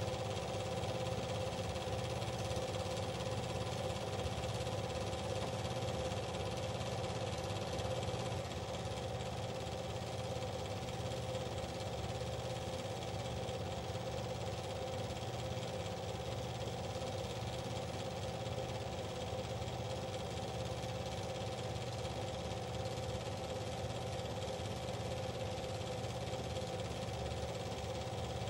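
A steady mechanical whir and hum with several held tones over a hiss, unchanging throughout.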